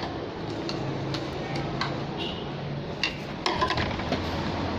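1997 Honda Civic engine running with irregular sharp ticks and clicks over a steady hum, the ticks coming thicker about three and a half seconds in: the unexplained noise the owner is asking about.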